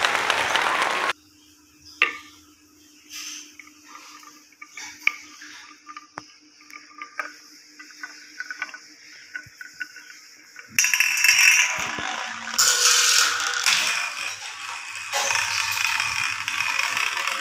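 Glass marbles clicking and knocking as they roll along a wavy wooden marble-run track, with a faint steady hum beneath. Loud music comes in briefly at the start and again from about eleven seconds in, together with rattling.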